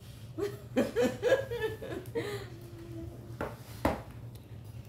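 A woman laughing softly and making short vocal sounds, with one sharp knock about four seconds in, over a steady low hum.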